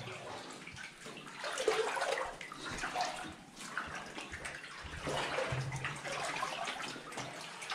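Water sloshing and splashing unevenly around legs as people wade through a flooded mine tunnel.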